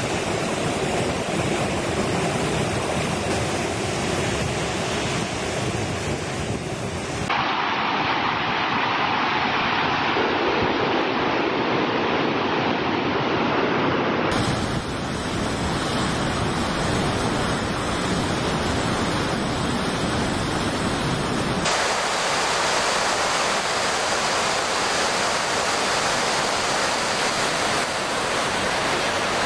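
Muddy floodwater of a swollen river rushing in rapids: a loud, steady rushing of water that changes abruptly in tone three times.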